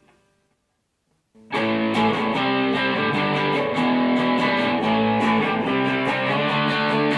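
Electric guitar played through a guitar amplifier, strumming and picking sustained chords, starting suddenly about a second and a half in after near silence.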